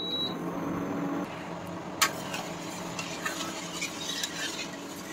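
Metal slotted spoon stirring sugar and water in a steel kadai, scraping and clicking against the pan, to dissolve the sugar for syrup. A steady hiss lies underneath, with the clicks coming thicker from about two seconds in.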